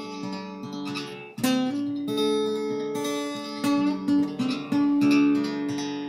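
Background music on acoustic guitar, with plucked notes and strummed chords.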